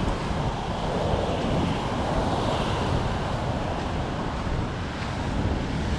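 Ocean surf breaking on a beach, with wind rumbling on the microphone.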